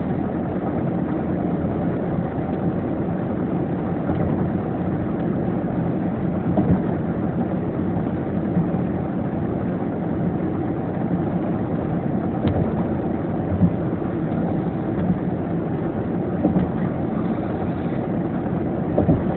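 Steady road and engine noise of a car driving, heard from inside the cabin as an even low rumble.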